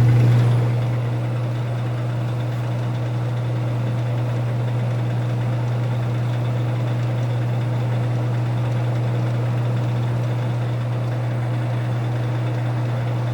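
Vintage Sears Coldspot 30 dehumidifier running: its Seeger rotary vane compressor and fan make a steady, even hum that eases slightly about a second in. The unit is freshly started and still coming down to temperature.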